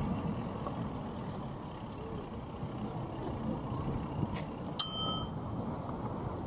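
A bicycle bell rung once about five seconds in, a single bright ding that rings briefly, over the steady low rush of wind and tyres while riding.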